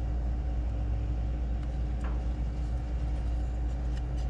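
Steady low machine hum with a fixed drone, and a faint click or two of small metal parts being handled about two seconds in and near the end.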